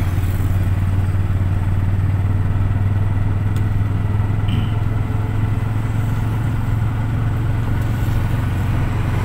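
Steady engine and road noise of a moving vehicle cruising along a paved road: a constant low hum under an even rushing noise.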